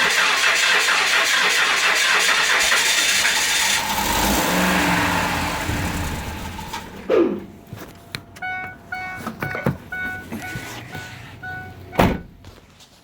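Ford E350's 5.4-litre V8 turning over with a loud, harsh noise that dies away over a few seconds: the bad noise the owner is chasing. After that comes a repeating electronic chime, and there is a sharp knock near the end.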